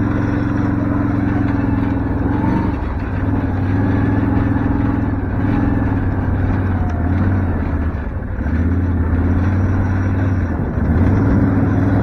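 Farm bike's engine running as it drives across a grass field, its note easing off and picking up again every few seconds with the throttle.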